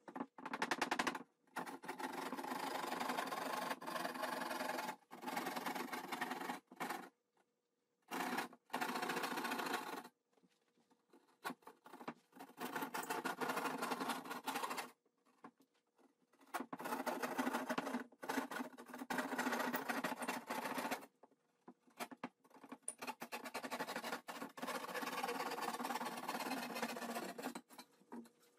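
Hand drywall knife sawing through a drywall panel with quick back-and-forth strokes, in runs of one to three seconds broken by short pauses.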